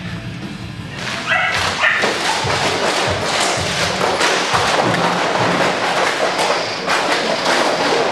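A young dog fighting a puppy bite tug, with thuds and dog noises, starting loud about a second in, over background music.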